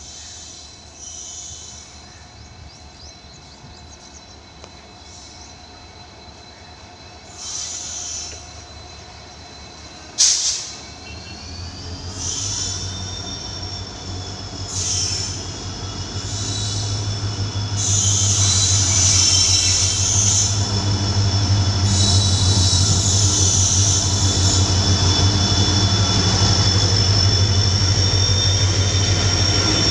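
An Indian Railways WDG-4D diesel locomotive, with its EMD two-stroke engine, hauling a goods train past. A low engine rumble builds over the second half as it draws near. A steady high-pitched wheel squeal rings out as the train rolls through. A single sudden sharp noise, the loudest moment, comes about a third of the way in.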